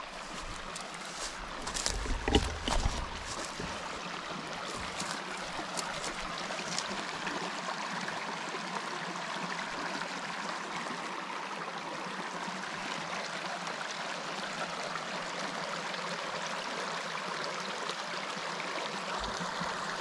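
North Branch Cascade River flowing steadily. Footsteps and a loud thump come in the first few seconds.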